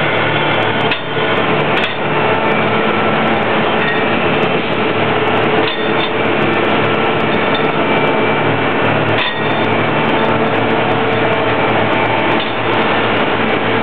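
A large tracked concrete paver's engine and machinery running steadily at close range, a constant mechanical drone with many steady tones, broken by a few brief knocks.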